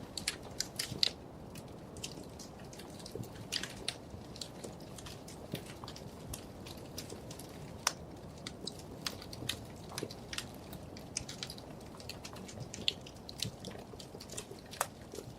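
Wood fire crackling in a fireplace: a low steady rush of flame with frequent irregular sharp pops and snaps.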